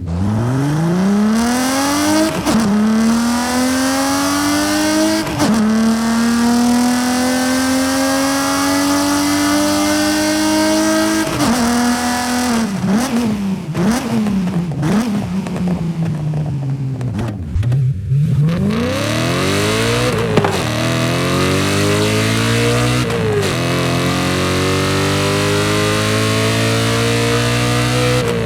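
BMW car engine accelerating hard through the gears: the pitch climbs and drops back at each upshift, three times in the first half. In the middle come a string of quick downshifts with short rev blips, then it pulls up through the gears again with two more upshifts.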